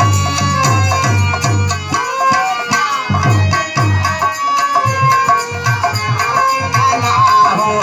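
Instrumental folk-music interlude: a hand drum beats a rhythm of low pitched strokes under a held melody line.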